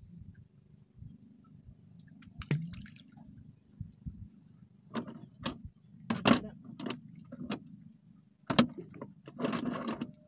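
Knocks and clatter of gear being handled in a wooden outrigger boat: a single knock, then a run of sharp knocks in the second half and a rustling clatter near the end, over a low steady rumble.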